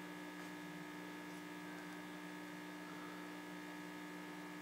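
Steady mains hum: a faint, even buzz with a few constant tones and no other sound.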